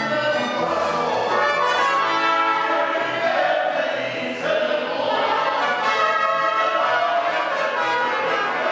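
Mariachi band playing, with violins, guitars and guitarrón, the violins and voices carrying the melody over a steady strummed accompaniment.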